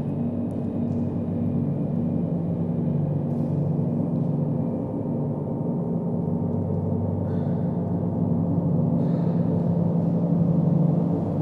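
Large suspended gong played continuously, giving a sustained low drone whose tones shift slowly. It swells a little louder toward the end, with no single hard strike standing out.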